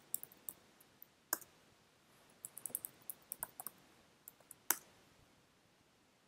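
Computer keyboard keystrokes clicking: a few taps, a louder single keystroke about a second and a half in, a quick run of keys around three seconds in, and a second louder keystroke near five seconds.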